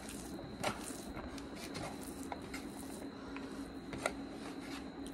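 Bare fingers squishing and mixing cooked rice on a ceramic plate, with soft scattered ticks and two sharp clicks, about two-thirds of a second in and about four seconds in. A steady low hum runs underneath.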